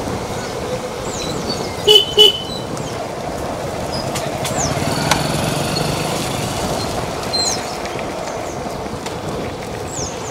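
Several motor scooters and motorcycles running along in a group, with two short horn toots about two seconds in.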